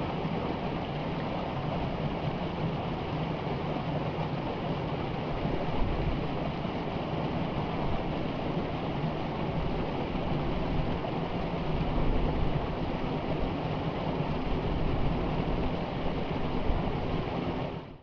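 Small waterfall on a rocky stream pouring into a pool: a steady rush of water.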